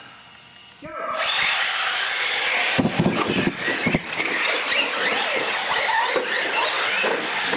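Six radio-controlled UTV trucks launching together and racing across a smooth floor: several electric motors whining and revving at different pitches, with tyre squeal. The race sets off about a second in, and a couple of knocks come about three and four seconds in.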